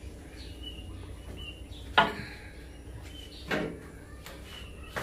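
A metal spatula knocking against a steel wok of stir-fried vegetables: a sharp clack with a short ring about two seconds in, a weaker one a second and a half later, and another at the very end.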